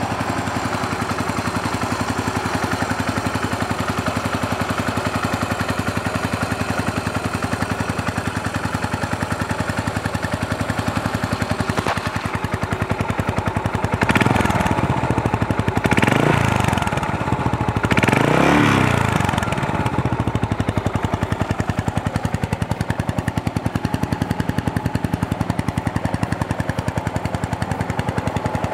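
Yamaha SR400's air-cooled single-cylinder four-stroke engine idling through its exhaust with an even pulse. It is revved three times near the middle, each rev rising and falling in pitch, then settles back to idle.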